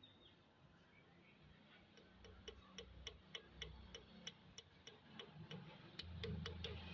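Faint, quick ticking, about four ticks a second, beginning about two seconds in and stopping near the end, over a low rumble that grows in the last second.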